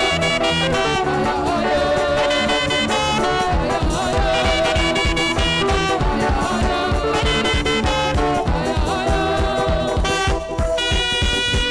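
Live African gospel high-praise band music with a saxophone lead over a fast, dense drum beat. Just past ten seconds the music drops briefly and a long held note follows.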